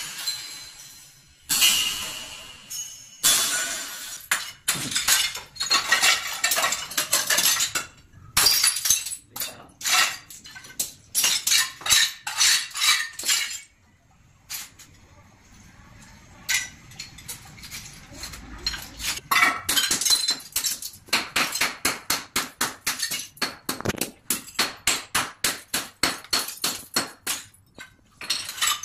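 Hammer blows shattering a ceramic toilet bowl, each strike cracking the porcelain and setting loose shards clinking and rattling across a tiled floor. The blows come in uneven runs with a quieter pause midway, then a quick steady series of strikes, about two to three a second, near the end.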